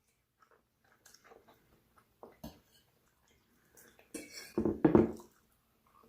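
Eating sounds close to the microphone: scattered soft clicks of cutlery on a plate and chewing, with a louder, denser burst of noise about four to five seconds in.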